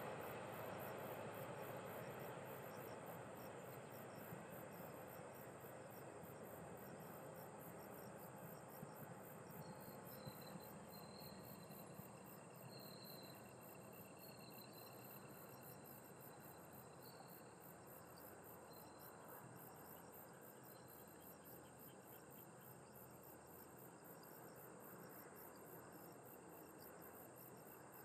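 Faint rumble of a locomotive-hauled passenger train moving away, fading slowly into the distance, under a steady fast-pulsing chirr of insects.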